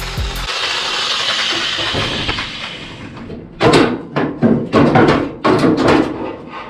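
Reciprocating saw cutting through a steel truck-bed mount, stopping about half a second in. A hiss fades out, then comes a string of loud metal knocks and clanks.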